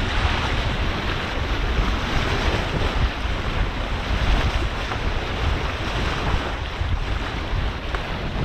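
Wind buffeting the microphone over the steady rush of water along a sailboat's hull while under sail.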